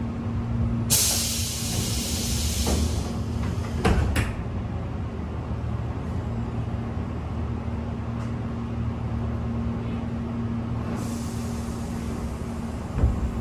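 Tobu 8000 series train doors closing from inside the car: a hiss of compressed air, then the doors knock shut about four seconds in. A steady low hum runs underneath, with a second release of air near the end and a single thump just before it ends.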